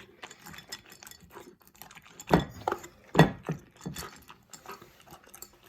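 Basset hound puppy gulping dry kibble from his bowl: a steady run of small clinks and crunches as the kibble rattles against the bowl, with a few louder knocks about two and a half and three seconds in.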